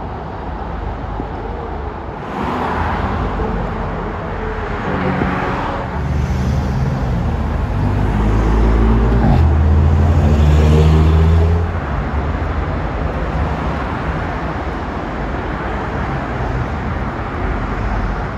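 A car engine accelerating hard over street traffic noise. Its pitch rises, breaks briefly about halfway through as if changing gear, rises again, and then drops away suddenly about two-thirds of the way in.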